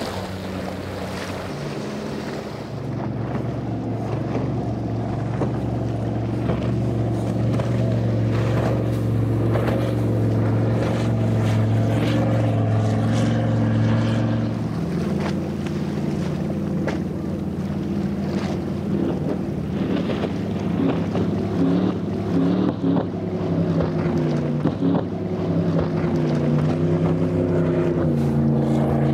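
Motorboat engines running at speed, a steady drone with water rushing beneath. About halfway through the engine note changes to another boat's, wavering up and down as the throttle shifts.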